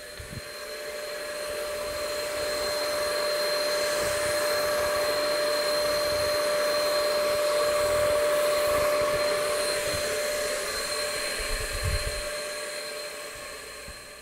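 Earlex HVLP spray system's turbine running steadily, a blowing whine with two steady tones, while a polyurethane top coat is sprayed from the gun. It fades in over the first two seconds and fades out near the end.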